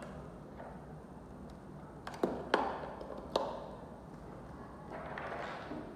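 Sharp clicks and light taps of small hard parts being handled, three in quick succession about two to three and a half seconds in.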